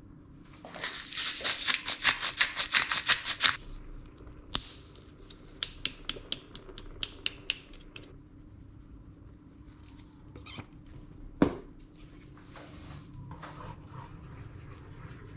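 A hand spice grinder clicking quickly as it is twisted over the pan for about three seconds, then a few sharper single clicks. Later a spatula knocks once against the pan and stirs the cream sauce with soft scraping.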